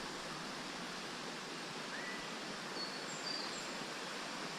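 Steady rush of creek water running over rapids, with a few faint bird calls: a short rising whistle about two seconds in and a few brief high notes around three seconds.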